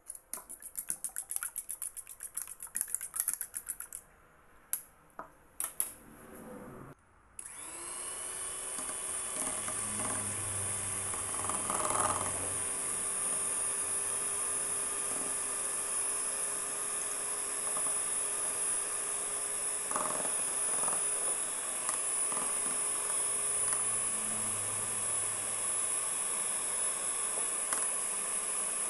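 A fork beating eggs in a ceramic bowl, clicking rapidly against the bowl, then a few single taps. About seven seconds in an electric hand mixer starts and runs steadily with a high whine as its beaters whip the eggs.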